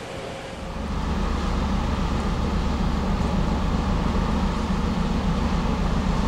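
Diesel engine of a Great Lakes self-unloading freighter passing close by, a deep steady rumble that comes in about a second in.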